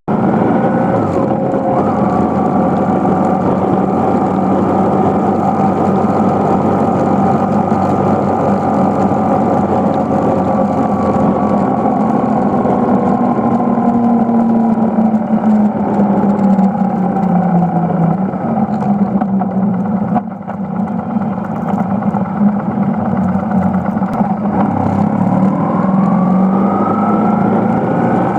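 BMW R1150GS's air-cooled boxer twin engine running while riding. Its pitch falls slowly over most of the stretch, dips briefly about two-thirds of the way through, then climbs near the end as the bike accelerates.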